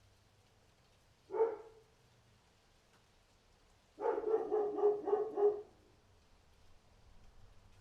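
A dog barking: one bark about a second and a half in, then a quick run of about six barks a few seconds later.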